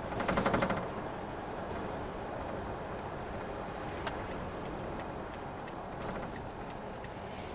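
Steady road and engine noise inside a moving vehicle. About half a second in, a brief fast rattle of knocks sounds, and a few faint ticks follow later.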